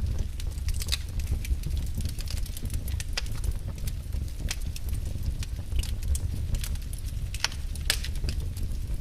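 Wood fire crackling in a fireplace: irregular sharp pops and snaps, a few of them louder, over a steady low rumble of the burning.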